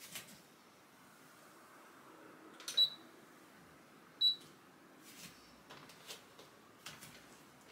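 Two short high-pitched beeps about a second and a half apart from a digital body-composition scale being switched on, followed by a few soft taps of bare feet on the wooden floor and the scale.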